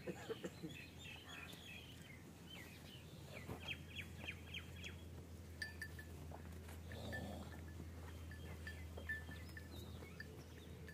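Faint farmyard ambience: small birds chirping in short, quick runs over a low steady hum.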